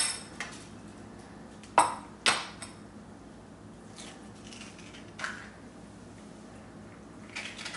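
Metal kitchen utensils knocking and clinking against a board or dish while an avocado is cut up. There is a sharp clink at the start, two more close together about two seconds in, and a lighter knock around five seconds.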